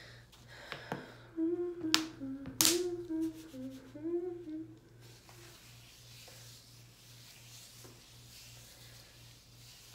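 A woman humming a short tune for about three seconds, with two sharp clicks about half a second apart in the middle of it.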